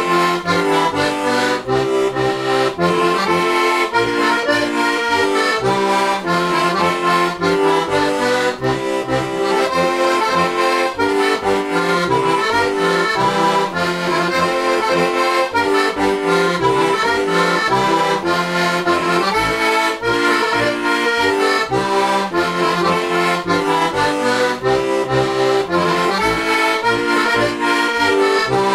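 Heligonka, a Slovak diatonic button accordion built by Juraj Krahulec, tuned in C and F with four-voice reeds including a low octave and hand-made (tipo a mano) brass reeds, playing a folk tune: melody over a steady, rhythmic bass and chord accompaniment.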